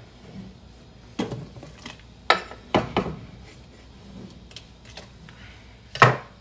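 Red onion wedges slid off a bamboo cutting board into a steaming stainless steel pot of beef broth, the board knocking against the pot: a few scattered knocks, the loudest about six seconds in.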